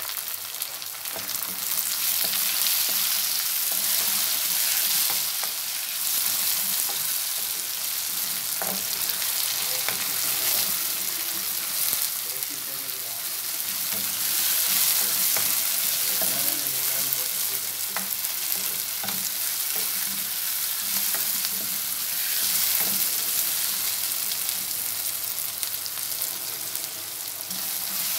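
Chopped tomatoes frying in hot oil with onions and green chillies in a non-stick wok: a steady sizzle that swells and eases as a wooden spoon stirs and scrapes the pan. The tomatoes are cooking down until soft.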